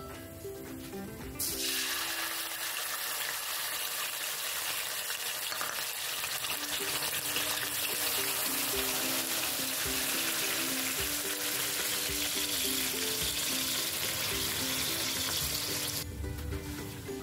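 Liquid poured into hot oil in a steel wok, sizzling with a dense, steady hiss that starts suddenly about a second and a half in and cuts off shortly before the end.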